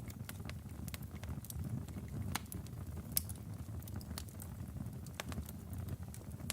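Wood fire in a fireplace burning with a steady low rumble and irregular sharp crackles and pops from the logs.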